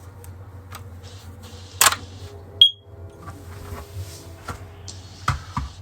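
Smoke alarm giving one short, high chirp about two and a half seconds in, the chirp it sends when its battery drawer is pushed in with the test button held, marking that it has entered linking mode. A few sharp plastic clicks from handling the alarm come before and after.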